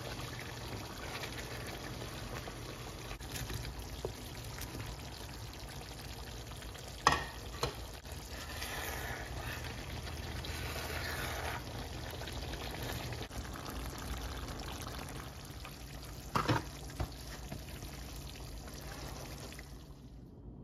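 Stew sizzling and bubbling in a pan as it is stirred, a steady frying hiss with a low hum under it. Two pairs of sharp knocks stand out, about a third of the way in and again near the end.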